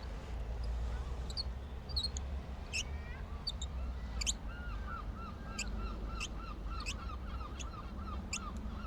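Birds calling over a steady low wind rumble: scattered short high chirps, then from about halfway a quick series of repeated arched calls, about three a second.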